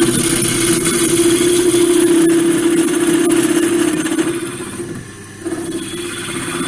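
Wood lathe running with a steady hum while a chisel cuts the spinning laurel wood, giving a high hissing, scraping noise. The sound eases off for about a second near the end, then picks up again.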